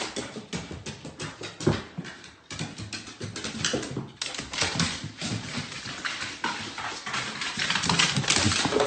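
A dog's claws and paws clattering on wooden stairs as it makes its way down, a quick, uneven run of taps.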